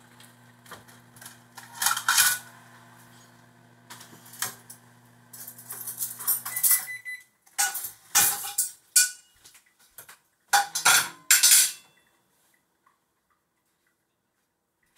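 Plates, dishes and cutlery clinking and clattering as a table is set, in separate knocks and clinks every second or so. A low steady hum stops about halfway through, and the clatter ends a few seconds before the close.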